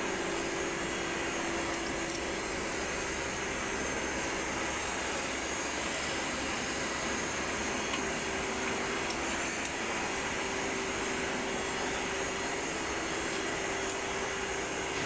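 Steady machine noise, an even whoosh with a constant low hum that does not change.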